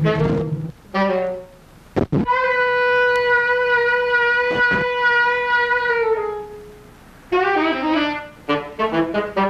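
Solo horn music: a short phrase, then one long held note of about four seconds that sags slightly in pitch as it ends, followed by a run of short, detached notes. A brief knock sounds just before the long note.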